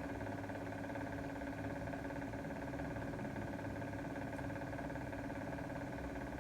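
A motor running steadily: an unchanging hum made of several fixed tones.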